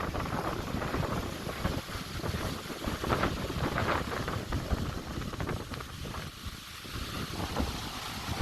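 Wind buffeting the microphone over the rush and slosh of sea water on a boat rolling in a swell, with brief louder surges a few seconds in.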